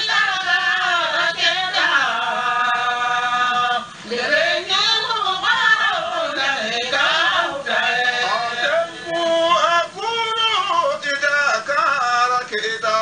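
A solo voice singing long, wavering, ornamented held notes, with short breaks about four seconds in and again about ten seconds in.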